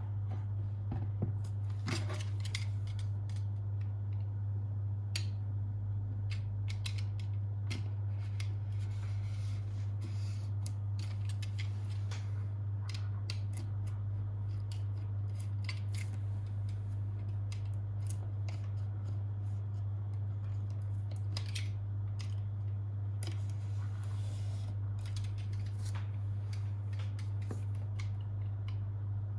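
Packaging being handled and cut open, with scattered short snips and clicks, over a steady low electrical hum.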